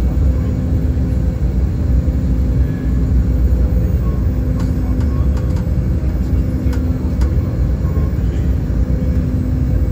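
Cabin noise aboard an Embraer E195 airliner: the steady rumble of its General Electric CF34 turbofan engines and the airflow, with a steady hum and a few faint clicks.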